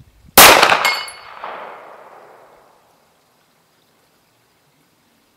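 A single shot from a 1911 pistol, followed about half a second later by a short high ring of a steel plate hit far downrange, and an echo dying away over about two seconds.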